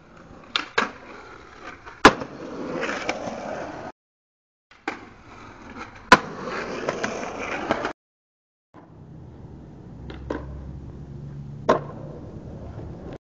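Skateboard wheels rolling on concrete with sharp clacks of the board striking the ground and ledge, the loudest about two seconds in and about six seconds in. Near the end, a low steady hum with two sharp clicks.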